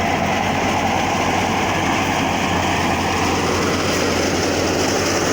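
Tractor engine running steadily under load, driving a wheat thresher: a constant, dense mechanical din with an engine hum underneath.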